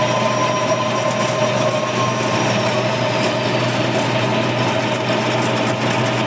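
Lathe running steadily: a constant machine hum with a steady whine from its motor and gearing, and no change in speed.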